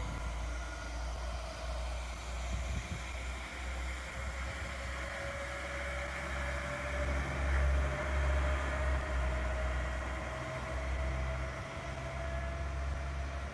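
Alstom Coradia LINT diesel railcar pulling away, its engine and transmission running with a steady whine that rises slowly in pitch as it accelerates, over a low rumble.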